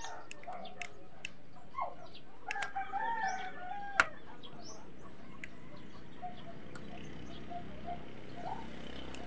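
A rooster crowing once, about a second long, starting about two and a half seconds in, with scattered small bird chirps and a single sharp click about four seconds in.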